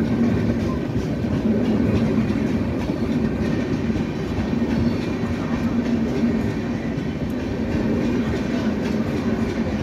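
Passenger coaches of an Indian Railways superfast express train rolling past close by: a steady rumble of steel wheels on the rails with repeated clacks over the rail joints.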